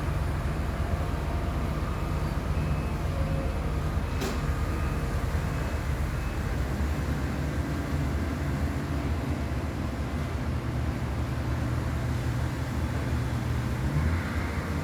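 Digger (excavator) rumbling steadily with a deep, continuous low hum, with a single sharp click about four seconds in.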